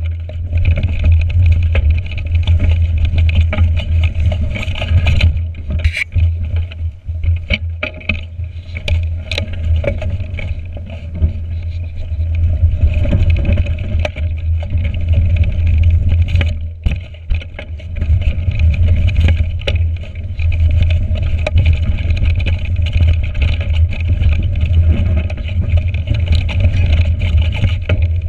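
Wind rumbling on a GoPro's microphone while a 29er mountain bike rides a frozen, bumpy forest trail, with scattered clicks and knocks of the bike rattling over roots and ruts.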